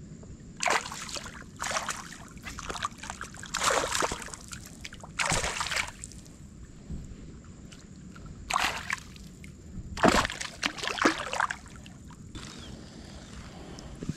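A small hooked fish splashing and thrashing at the water's surface as it is reeled in: about seven irregular splashes over some ten seconds.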